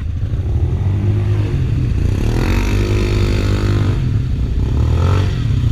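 ATV engine running under the rider, its revs rising and falling as the quad turns circles on gravel, with a clear rev up and back down about two to three seconds in.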